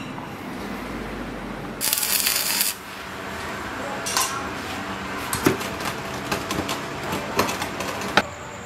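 A short burst of hissing electric arc welding, about two seconds in, as a tack weld is laid on a steel bracket clamped to an angle grinder's gear head. It is followed by a run of sharp metal clinks and knocks as the steel parts are handled.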